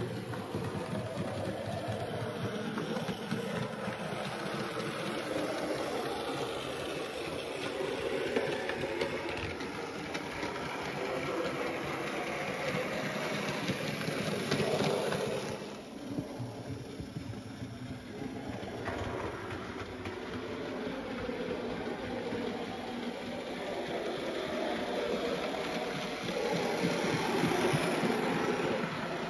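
Model trains running on a model railway layout: the steady whirr of small motors and wheels on the track. It dips a little just past halfway and grows louder again near the end.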